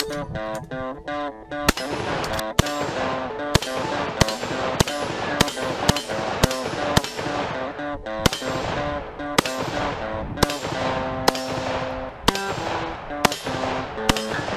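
Rapid semi-automatic fire from an AK-pattern rifle: about twenty shots at roughly two a second, starting a couple of seconds in, each with a short echoing tail, over background music.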